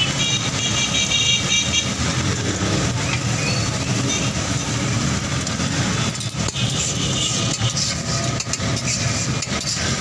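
Busy street noise: a steady rumble of traffic and engines, with voices in the background.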